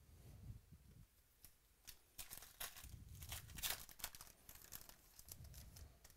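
Foil wrapper of a basketball trading-card pack being torn open by hand, crinkling and rustling as it is pulled apart and the cards are slid out, loudest around the middle.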